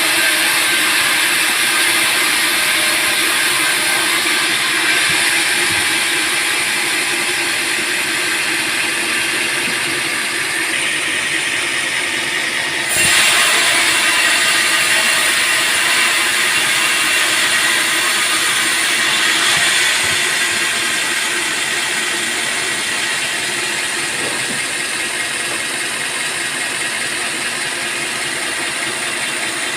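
Sawmill band saw running through a teak log: a loud, steady, hissing machine noise that steps up suddenly about thirteen seconds in.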